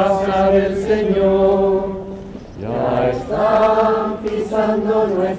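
A group of clergy singing a liturgical chant together as they walk in procession. The voices hold long notes in two phrases, with a short breath about two and a half seconds in.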